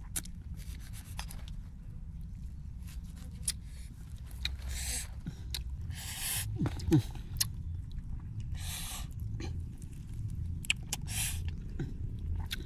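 A knife slicing a lime, then the lime halves squeezed by hand: short rasping, rustling noises and light clicks over a steady low rumble, with a brief sharper sound about halfway through as the loudest.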